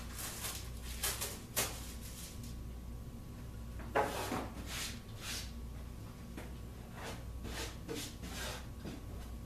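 Self-adhesive carpet squares being handled and pressed down by hand: a scattering of short rustling and scuffing sounds, the loudest about four seconds in.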